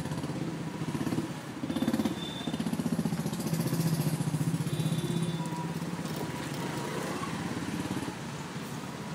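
Motorcycle engine running with a fast, even pulsing, growing louder a few seconds in and then holding steady.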